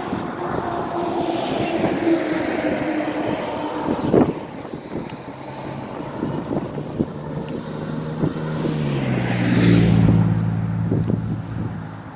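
Motor vehicles passing on a road close by, their engine and tyre noise swelling and fading. The loudest goes by about ten seconds in with a low engine drone, and there is a short knock about four seconds in.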